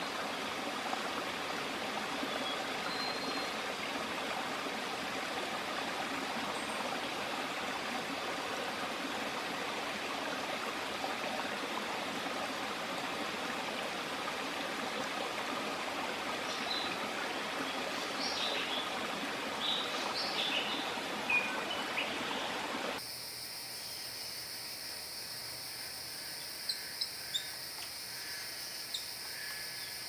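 Steady rushing of a forest stream with a few short bird chirps over it later on. About 23 seconds in it cuts to quieter forest background with a steady hiss and a few brief chirps.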